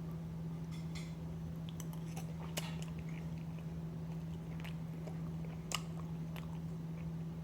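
A person chewing a mouthful of casserole, with small moist clicks and crackles of the mouth, over a steady low hum.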